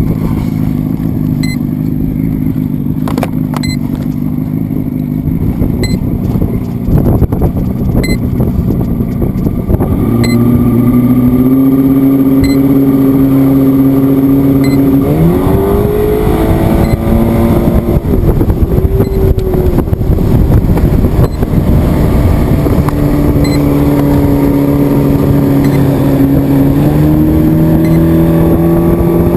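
A motor running under changing power, a pitched hum over rough rushing noise. It steps up in pitch about ten seconds in, sweeps higher around the middle, and climbs again near the end, with a few sharp clicks in the first part.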